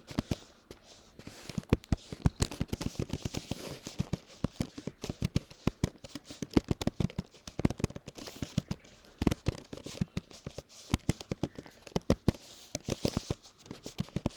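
Laptop keyboard being typed on steadily: rapid, irregular key clicks several a second, at a typing-test pace of about 32 words a minute.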